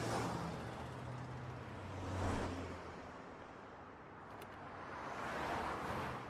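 Cars driving past close by one after another, three swelling-and-fading whooshes of tyre and engine noise, with a low engine hum under the first two.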